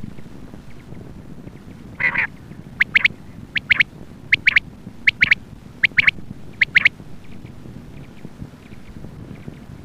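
Female quail calling: short, sharp double notes repeated about every three-quarters of a second, with one broader, harsher call about two seconds in. The calls trail off after about seven seconds.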